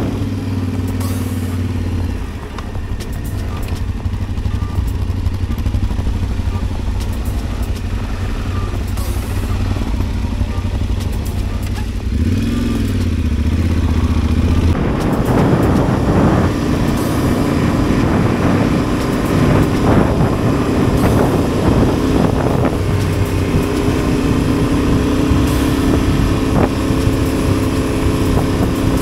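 Adventure motorcycle engine running while riding, its note shifting in pitch several times. It turns louder and rougher about halfway through, with knocks and rattles over the engine.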